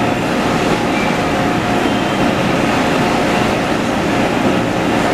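Steady, continuous rumble of machinery on a factory floor, with no single sound standing out.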